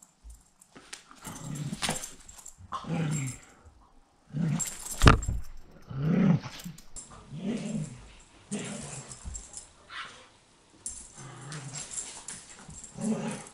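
A dog growling, short growls one after another as it worries at a person's feet and socks. A single sharp knock about five seconds in.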